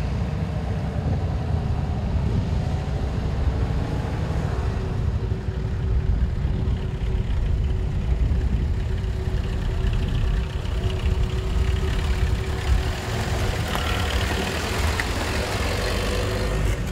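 Engine of a WWII-era military jeep running at low speed as it drives up slowly, with a steady low rumble, coming close and passing by near the end.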